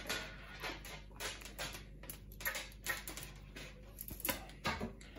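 Thick 1.8 mm enamelled copper wire being pulled through and wound around a Fair-Rite 240-43 ferrite toroid by hand: an irregular run of scrapes and light clicks as the wire slides through the core and taps against it.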